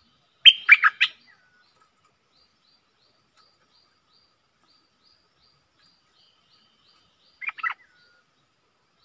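Stripe-throated bulbul singing: a loud, quick phrase of several notes about half a second in, then a shorter, quieter phrase near the end. Faint high chirps repeat about twice a second behind it.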